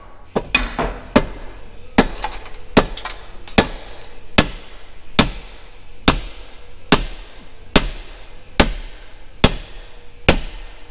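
Metal pry bar hammering on a Ferrari 458's stuck rear exhaust muffler section, with regular sharp strikes a little more than one a second, each ringing briefly, to knock it loose.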